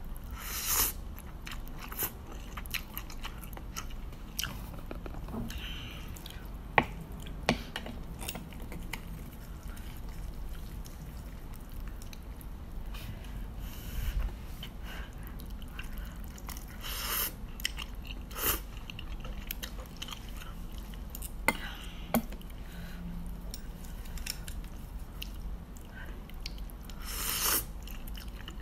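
A person slurping up instant noodles and chewing them, with several short slurps between stretches of chewing and a few sharp clicks.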